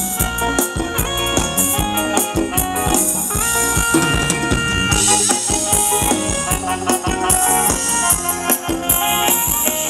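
Live band playing upbeat Thai ramwong dance music: a drum kit keeps a steady beat under held melody notes, with no singing.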